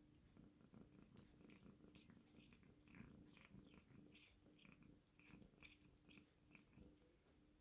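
A domestic cat licking and chewing a treat held in a hand: faint, quick wet smacks and clicks, several a second.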